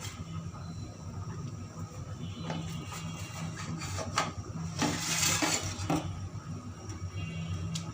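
Kitchen utensils clinking and scraping against a pot or bowl, with a few sharp clicks and a louder scrape lasting about a second, just past the middle, over a steady low hum.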